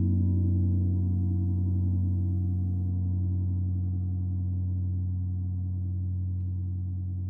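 A gong ringing on from a single stroke: a deep, steady hum with several higher overtones, slowly fading.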